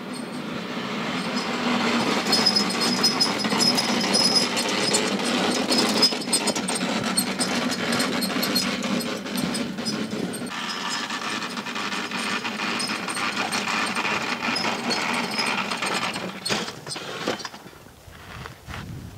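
Small gasoline engine of a two-stage walk-behind snowblower running steadily as the machine is driven through snow. The noise falls away sharply near the end.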